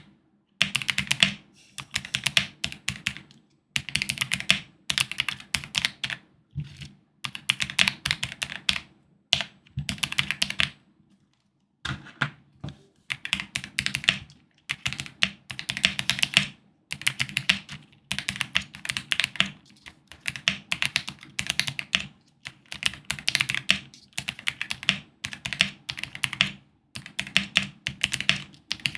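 Fast typing on a GMK87 mechanical keyboard fitted with Gateron Curry linear switches, the keystrokes clacking in rapid bursts with short pauses between them and one longer pause about eleven seconds in.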